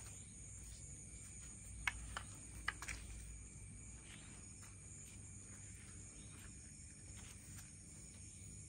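Night insects chirring steadily at a high pitch, with a few sharp clicks about two to three seconds in.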